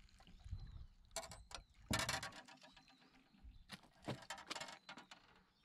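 A series of short knocks and rattles from a landing net holding a freshly caught black bass being lifted and handled against the side of an aluminium boat, the loudest clatter about two seconds in.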